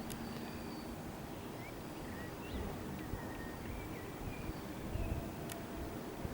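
Faint outdoor ambience: a steady low rumble with a few short, faint bird chirps and an occasional click.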